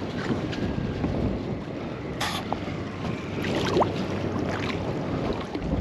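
Wind buffeting the microphone over choppy water around a small boat, as a steady rushing noise, with a short sharp burst of noise about two seconds in.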